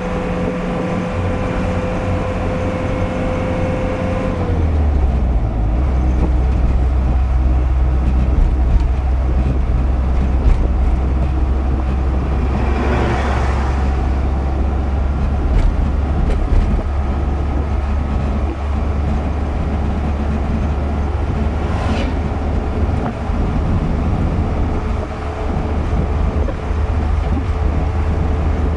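Steady engine and road rumble heard from inside a car driving on a highway; the engine note drops about four seconds in. About thirteen seconds in, the rushing noise of a passing oncoming vehicle swells and fades.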